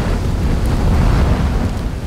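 Lava fountain of a volcanic fissure eruption giving off a deep, steady rumble, with a haze of noise above it.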